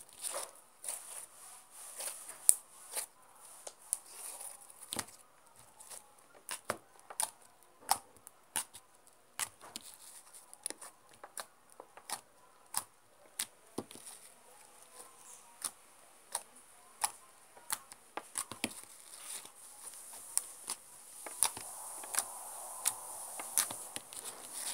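Slime being stretched, kneaded and pressed by hand, giving irregular sharp clicks and pops, about one or two a second. The clicks thicken into a steadier squishing near the end.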